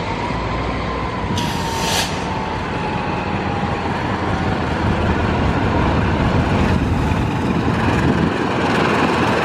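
Diesel locomotive hauling a passenger train through a station yard, its engine and wheels rumbling steadily and growing louder as it approaches. A faint thin squeal slowly falls in pitch in the first half, and a brief hiss comes about a second and a half in.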